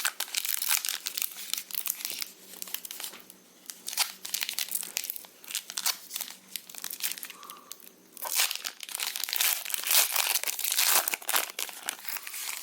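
Foil-wrapped trading card pack being torn open by hand and its wrapper crinkled, in bursts of crackling with a few quieter stretches and the busiest tearing in the last few seconds.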